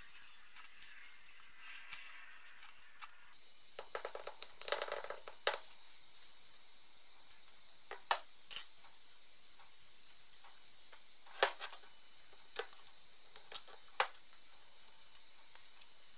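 Hand-work noises on a workbench while repacking a CV joint: a burst of plastic grease-sachet rustling and crackling about four seconds in, then about half a dozen sharp clicks and taps of metal parts being handled and set down.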